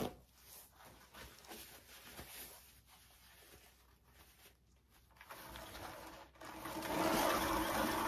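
Faint handling and rustling, then, about six and a half seconds in, a homemade paint spinner starts turning fast with a steady whirring hum that is the loudest sound here.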